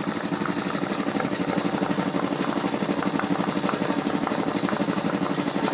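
Homemade propane-tank air compressor, a belt-driven Coast to Coast compressor pump, running steadily with a fast, even pulse.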